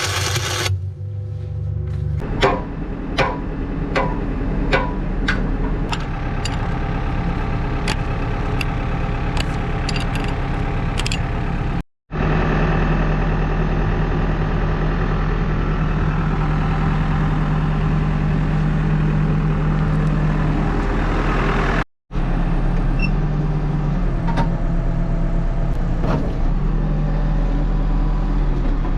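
Backhoe loader's diesel engine running steadily under work, with a run of sharp clicks about once every 0.7 s in the first part. The sound drops out briefly twice.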